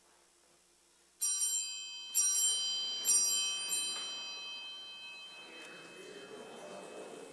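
A small multi-toned bell struck three times, about a second apart, the ringing lingering and slowly fading: the bell that signals the start of Mass as the priest enters. A low rustle near the end as the congregation stands.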